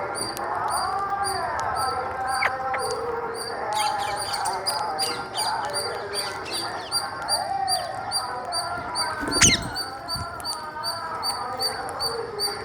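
Parrots chattering, a mix of short calls that slide up and down in pitch. A steady high ticking repeats about three times a second throughout, and a single loud sharp call or knock stands out about nine and a half seconds in.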